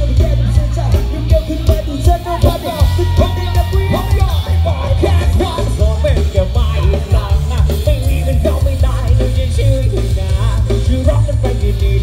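A Thai rot hae sound-truck band playing over loudspeakers: a singer over strong, heavy bass and a steady beat.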